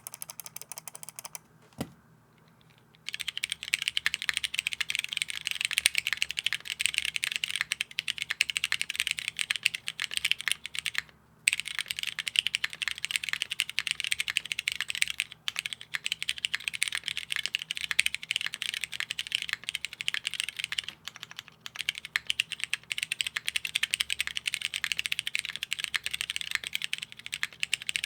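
Typing on a plateless, foamless Leviatan mechanical keyboard with Cherry MX Brown Hyperglide tactile switches and DCS keycaps. A few keystrokes, a pause of about a second and a half with one lone click, then fast continuous typing with one short break partway through.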